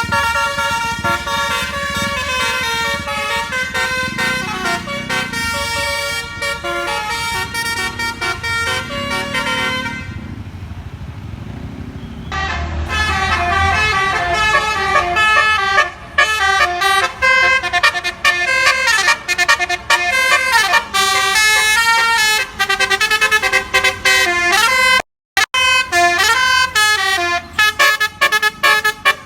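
Bus-mounted telolet 'basuri' multi-trumpet air horn sounding: first a chord held for about ten seconds, then after a short gap a fast tune of changing notes, with a vehicle engine rumbling underneath. The horn breaks off for a moment about 25 seconds in.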